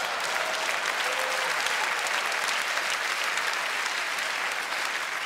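Audience applauding in a steady round of clapping after a comedy punchline, easing off slightly near the end.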